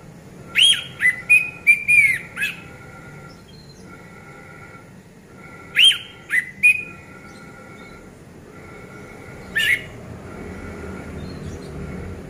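Orange-headed thrush singing: three bouts of sliding, whistled notes, starting about half a second, six seconds and nine and a half seconds in, the first the longest at about two seconds.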